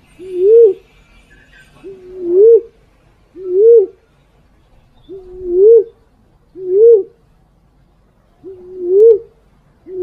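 Recorded call of a female fruit dove (walik), played as a hunting lure: a low hooting coo repeated about every one to two seconds. Each coo swells up in pitch and falls away, and every other one starts with a short level lead-in note.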